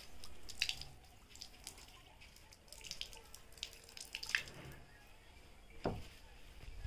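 Water from an outdoor tap splashing and spattering unevenly onto strips of dried banana fibre and the paved floor beneath as the fibre is wetted to soften it. There is a dull thud about six seconds in.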